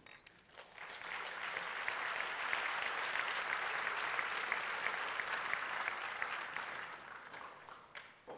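Audience applauding: the clapping swells in during the first second, holds steady, then dies away near the end.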